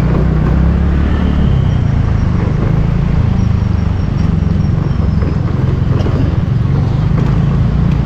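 Motorcycle engine running at low speed in traffic, with a steady low rumble of wind on the microphone.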